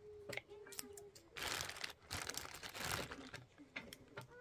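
A plastic bag crinkling in two long rustles around the middle, with a few short, sharp clicks of metal tin snips cutting small plastic pieces.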